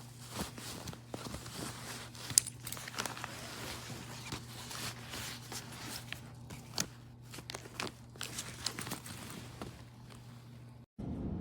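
Fabric backpack being handled: irregular rustling and crinkling with many small clicks, over a steady low hum. Near the end it cuts off abruptly and a steady low rumble takes over.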